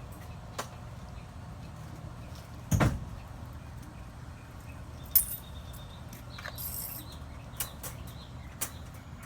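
A loud thump about three seconds in, then several sharp clicks and a brief metallic jingle, over a steady low hum.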